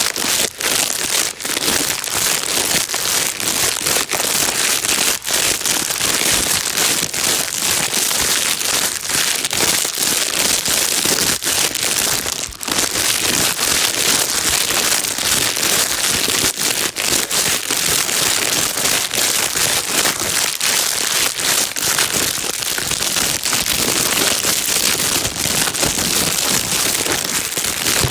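A plastic bag being crinkled nonstop, a dense crackling hiss with many small pops, used as white noise to calm a baby.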